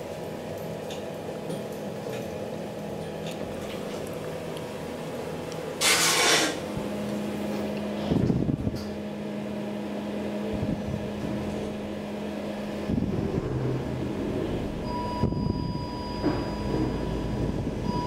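KONE traction elevator's sliding doors closing: a brief loud rush about six seconds in and a thud about two seconds later, with a steady machinery hum through the middle. A steady high tone comes in near the end.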